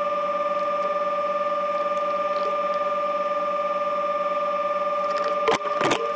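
A steady, unchanging pitched tone with overtones, like a held electronic note. A few short sharp knocks come about five and a half seconds in and again just after.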